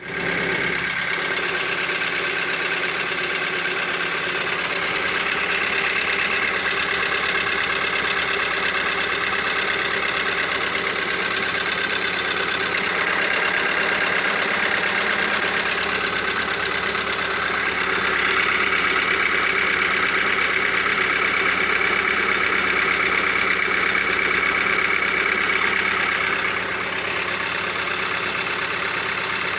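Hyundai/Kia G4FG 1.6-litre four-cylinder petrol engine running steadily at idle, carrying an extraneous noise that the owner is trying to find. Its level dips slightly near the end.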